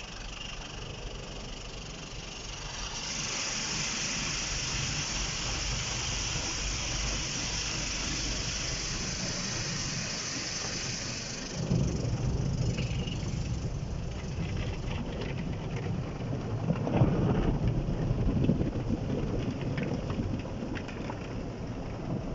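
Automatic car wash heard from inside the car: water jets hissing steadily against the windshield and body. About halfway through, the sound changes suddenly to a louder, lower rushing rumble as foam streams over the glass.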